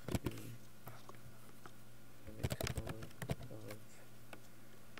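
Computer keyboard being typed on: a few keystrokes right at the start, then a quick run of keystrokes around the middle, over a steady low hum.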